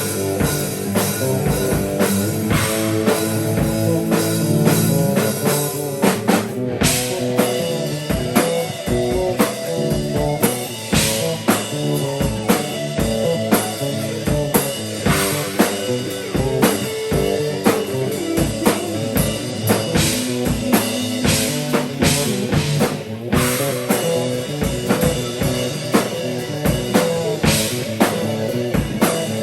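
A live band improvising: a drum kit keeps a steady beat under guitar and other pitched instruments.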